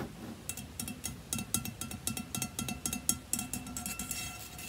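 Plastic straw fake nails tapping quickly on a plastic desk lamp shade: many irregular light clicks, several a second, each with a brief ringing note from the shade.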